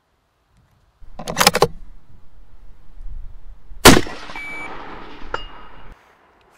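A single rifle shot just before four seconds in, the loudest sound, followed by brief ringing tones from the struck steel target. About a second in there is a short, loud noise.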